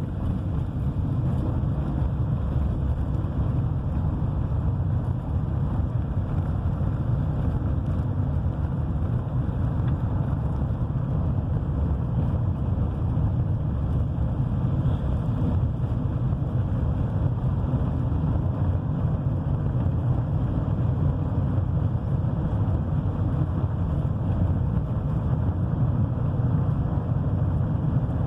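Steady low rumble of a car driving, heard from inside the cabin: road and engine noise with no change.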